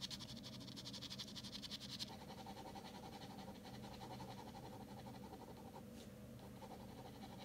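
Ballpoint pen scratching on drawing paper in quick, rhythmic shading strokes, faint throughout, a little louder for the first two seconds and fainter after that.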